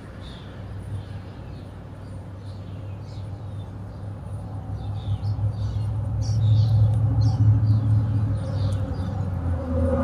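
A vehicle's low engine hum, growing louder through the second half as it comes closer, with short high bird chirps repeating in the background.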